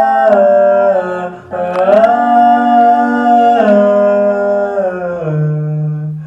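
A cappella vocal harmony without words: layered voices hold sustained chords and glide between them, stepping down to a lower held note that fades out near the end.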